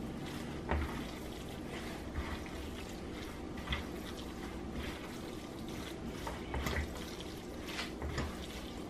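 Spatula folding wet cornbread dressing in a bowl: soft, irregular squelching and scraping strokes as the stock-moistened crumbs are turned over.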